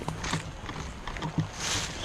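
Footsteps with rustling, a few scattered knocks, and a brief louder rustle near the end.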